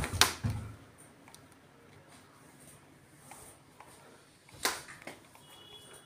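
Elektroclima split air conditioner indoor unit giving a short electronic beep near the end, the unit acknowledging a command from its infrared remote. A knock of handling noise sounds just after the start.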